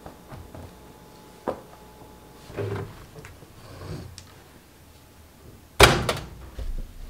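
A front-loading laundry machine's door shuts with a loud clunk about six seconds in, followed at once by a second, softer knock. Fainter knocks and handling sounds come before it.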